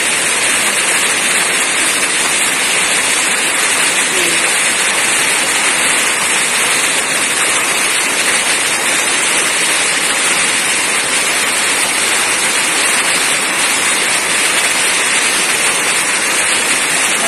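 Heavy rain pouring steadily, a loud, even hiss with no let-up.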